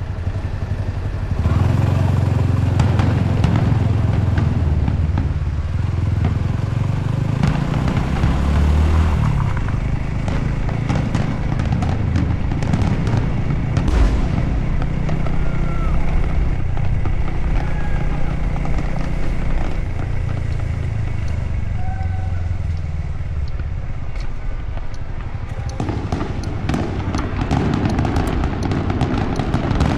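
Fireworks display: a continuous heavy rumble of bursting shells with scattered crackling. The crackling gets much denser in the last few seconds.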